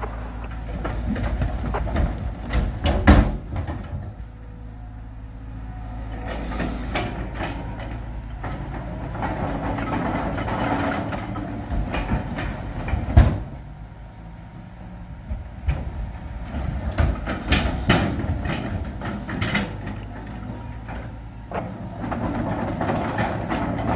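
Heavy diesel earthmoving machinery running steadily, with sharp metal clanks and knocks: loud ones about three and thirteen seconds in, and several more in a run later on.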